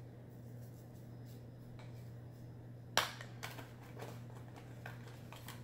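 A plastic sea salt container being handled: a sharp click about three seconds in, then a few light taps, over a steady low hum.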